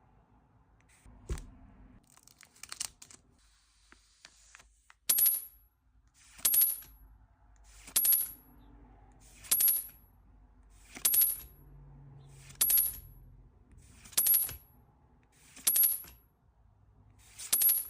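A short, bright metallic jingle, like a dropped coin ringing, repeats nine times at an even pace of about one every second and a half, starting about five seconds in. Before it come a faint click and some soft rustling.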